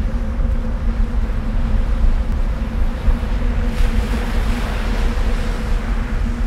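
Deep, steady rumble of a volcanic eruption with a faint low hum under it, and a rushing hiss that swells about four seconds in.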